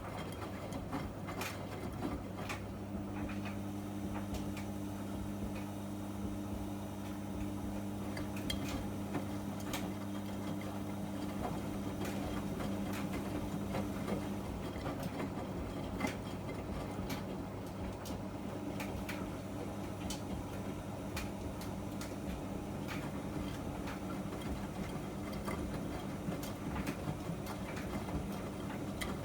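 Miele MedicWash W2585 washing machine running mid-cycle: a steady low hum under scattered light clicks and knocks from the laundry turning in the drum. A motor tone joins a few seconds in and stops about halfway through.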